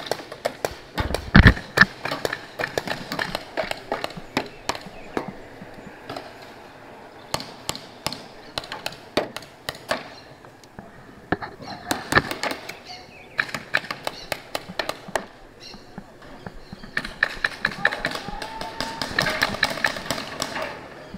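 Paintball markers firing: sharp pops, single shots and quick runs of several a second.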